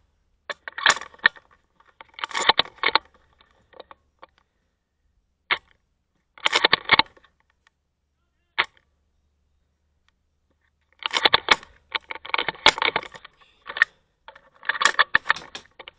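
Airsoft gunfire in volleys of rapid sharp cracks: a few short bursts, two single cracks near the middle, and the longest, densest stretch of firing in the last few seconds.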